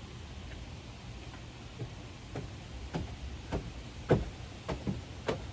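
Footsteps on the ground at a steady walking pace, a little under two steps a second, starting about two seconds in.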